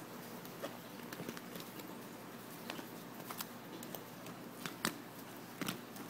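Handling noise: scattered soft clicks and taps, loudest about five seconds in, over a steady hiss, as the phone and a toy doll are moved about on a bed.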